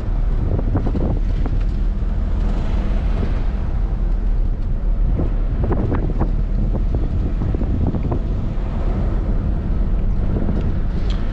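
Cabin noise of a vehicle driving on a dirt road: a steady low rumble of engine and tyres, with scattered rattles and knocks.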